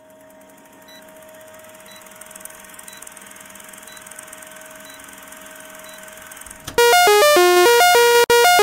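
Old-film countdown leader sound effect: a steady hum with hiss and a short high beep once a second, then about seven seconds in a loud synthesizer intro jingle of fast repeating notes cuts in abruptly.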